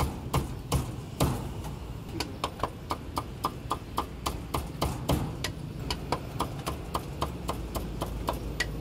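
Cleaver chopping crispy-skinned roast pork on a thick round wooden chopping block, in quick even strokes of about four a second.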